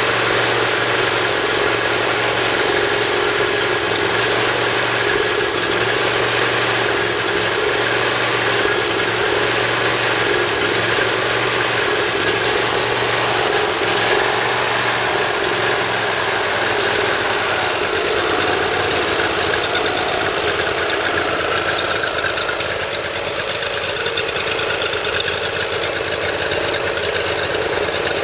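Briggs & Stratton Intek V-twin engine running steadily shortly after a cold start, now starting easily after its valve lash was reset. Its note changes about two-thirds of the way through.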